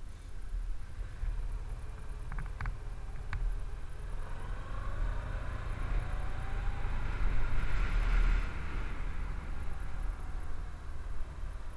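Honda DN-01 motorcycle's V-twin engine running while riding, over a constant low rumble of wind on the camera's microphone. A few sharp clicks come about two to three seconds in. The engine note then rises and grows louder, peaking a little past the middle, before easing back.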